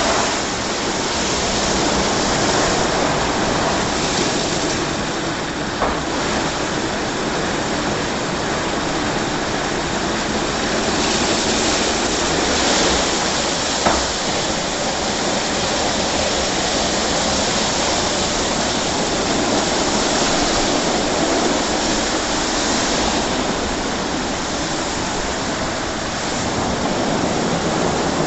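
WashTec SoftCare 2 Pro rollover car wash at work: rotating brushes scrubbing a car while water sprays over it, a steady loud rushing and splashing. Two short knocks, about 6 and 14 seconds in.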